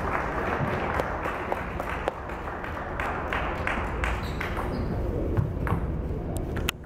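Table tennis rally: a celluloid ball clicking off the paddles and the table about twice a second, over a steady background rush that drops away near the end.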